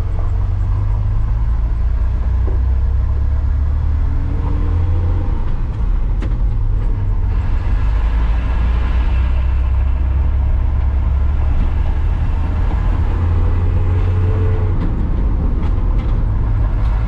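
Cab interior of a 1993 Ford F-150 on the move: the 4.9-litre (300 cubic-inch) inline-six pulls with a steady low rumble from the tyres on gravel. The engine note rises, drops off about five seconds in, rises again and drops once more near the end. The cab is a little noisy because the floor area around the shifter is left uncovered.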